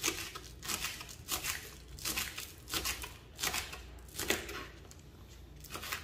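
Kitchen knife slicing green chilies and spring onion on a wooden cutting board: a short crisp cut about every two-thirds of a second, with a longer pause near the end.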